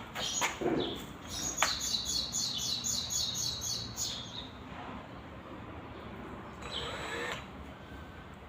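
A bird chirping in a quick run of high, evenly repeated chirps, about five a second, for a few seconds. A few sharp knocks sound in the first couple of seconds.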